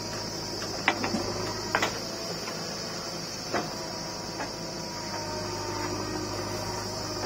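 JCB 3DX backhoe loader's diesel engine running steadily while it digs, with a few sharp metal clanks from the backhoe arm and bucket in the first four seconds, the loudest about a second in and just before two seconds.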